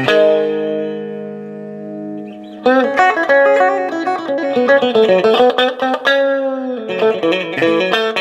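Fender Stratocaster electric guitar played through a hand-built clone of a blackface Fender Vibrolux Reverb tube amp, into an open bench speaker with the spring reverb on. A chord rings out and fades for about two and a half seconds, then a quick run of picked single notes follows.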